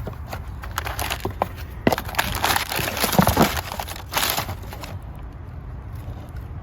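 Hand work on the brake job: metal clicks and knocks with a stretch of rustling and scraping from about two to five seconds in, over a steady low hum.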